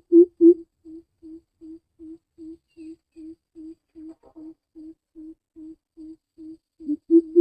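Greater coucal giving its deep, hollow 'hoop' call in a long even series, about two to three notes a second. The first notes are loud, most of the series is softer, and the notes grow loud again near the end.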